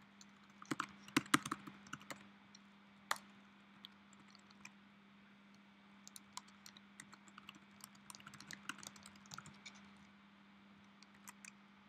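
Typing on a computer keyboard in bursts: a quick flurry of keystrokes in the first two seconds, a single keystroke about three seconds in, then a longer run of keystrokes from about six to ten seconds in, over a steady low hum.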